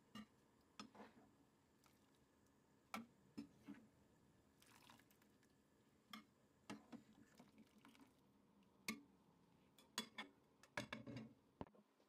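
Faint, scattered light clicks and taps, some in quick clusters near the end, with a soft wet swish about five seconds in: blanched cherry leaves being lifted out of a pan of hot water and laid on a plate.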